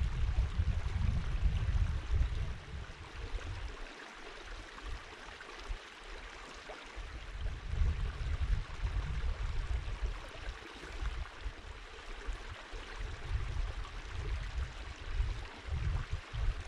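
Shallow rocky stream babbling steadily over stones, with an uneven low rumble that swells and fades.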